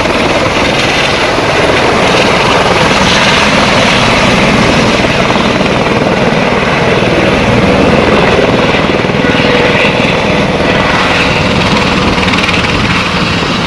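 Airbus EC130 helicopter landing close by and settling onto the pad, its rotor and turbine running loud and steady.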